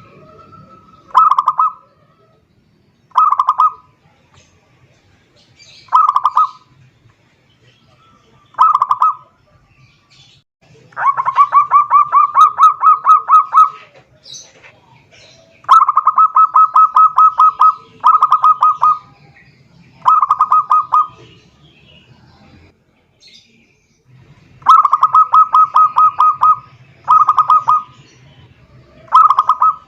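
Zebra dove (perkutut) calling song: loud phrases of rapid staccato coo notes, mostly short bursts every two to three seconds, with three longer runs of two to three seconds each.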